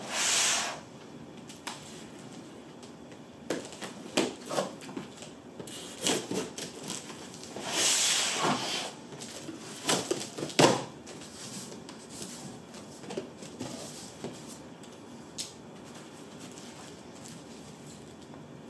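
A cardboard shipping carton being opened by hand. A knife slices through the packing tape at the start, then the flaps are handled in a run of irregular rustles, scrapes and knocks, the loudest a scrape about a second long some eight seconds in and a sharp knock soon after.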